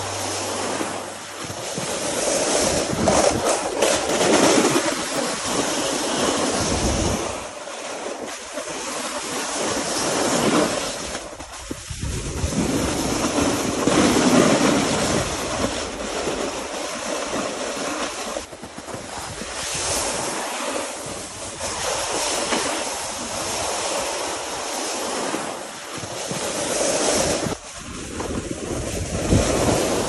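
Wind rushing over the microphone and the rider's edges scraping over snow while sliding down a ski run, the rush swelling and easing with speed and turns. Music stops about a second and a half in.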